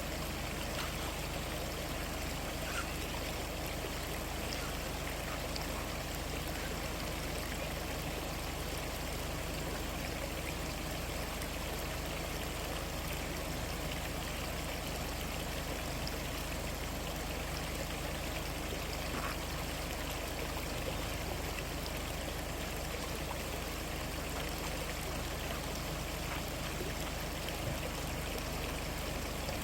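Mountain stream water flowing steadily over rocks, an even rushing hiss.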